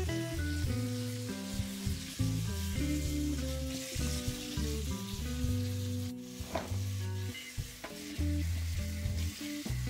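Tap water running and splashing onto fava bean pods in a sink as they are rinsed by hand, under background music with a melody of changing notes.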